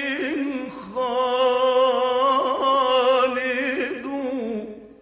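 A solo voice chanting an Arabic devotional poem in long, ornamented held notes with a wavering pitch. After a brief break about a second in, one long note is drawn out and then fades away near the end, closing the line 'wa ayyu bani Adama khalid'.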